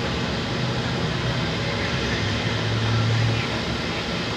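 Jet airliner engines running at low power, a steady rushing noise over a low hum that swells and fades.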